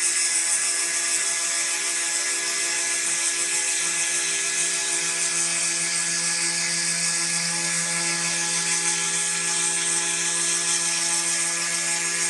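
Small desktop CNC router engraving a copper-clad PCB: its spindle motor runs at speed with a steady whine, while the engraving bit hisses through the copper as it mills the traces.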